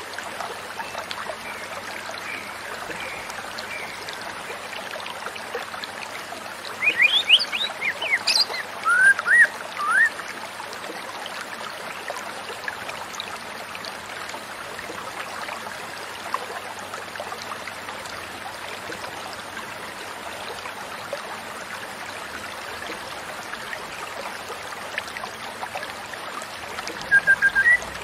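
Steady running water of a stream, with a white-rumped shama singing a burst of quick, rising and falling whistled phrases about seven seconds in for some three seconds, and a few more notes just before the end.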